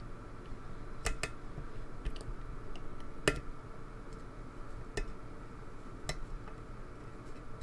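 Faint, irregular metallic clicks and ticks of a lock pick working the pins of a pin-tumbler lock held under tension, with one sharper click a little past three seconds in.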